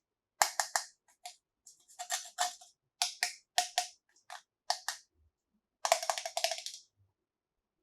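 Hard plastic toy pieces clicking and tapping against each other in short quick clusters, with a faster run of clicks about six seconds in.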